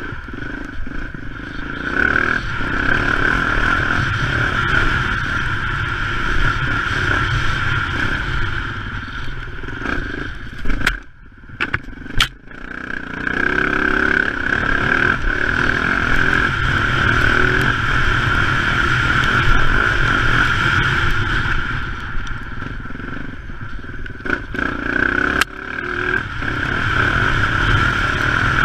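Dirt bike engine running while riding a rough dirt track, its level rising and falling. The sound drops away sharply for a second or two about eleven seconds in, then picks up again.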